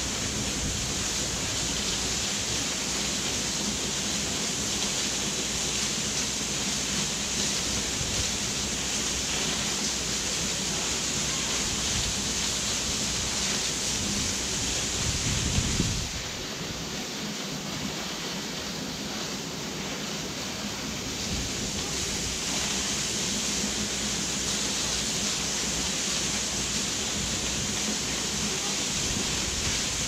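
Waterfall rushing steadily as it plunges into a pool. A low rumble of wind on the microphone runs under it, drops away just past the midpoint after a few brief bumps, and comes back several seconds later.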